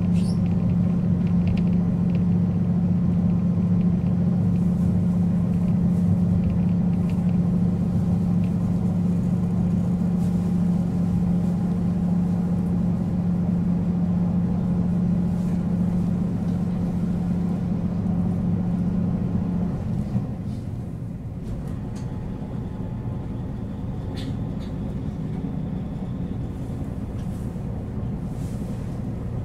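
KiHa 40 series diesel railcar idling: a steady low engine drone. About twenty seconds in, its strongest hum cuts out and the sound settles to a quieter, rougher rumble.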